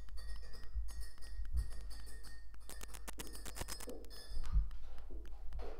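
Small plastic Lego bricks clicking and clinking as pieces are sorted and pressed together, with a quick flurry of clicks about halfway through.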